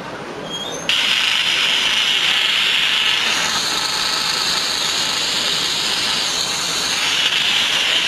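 Analog TV static hiss from an iPhone-replica phone's built-in TV tuner, played loud through its speaker while it picks up snow instead of a clear channel. The hiss is fainter for about the first second, then comes in full, and turns a little higher-toned for a few seconds in the middle.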